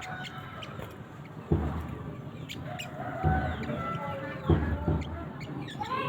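Spiderhunter (kolibri sogok ontong) calling: a run of short, sharp chirps and quick gliding call notes. Three dull thumps come about one and a half, three and four and a half seconds in.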